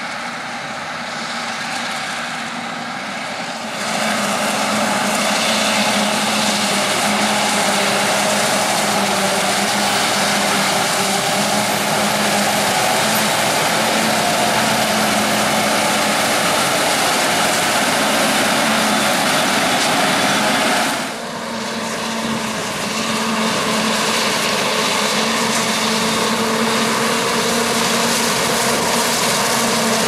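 Forage harvester at work with tractors alongside: the steady drone of the machine chopping maize and blowing it out of its spout, over a low engine hum. It gets louder about four seconds in and dips briefly past the middle.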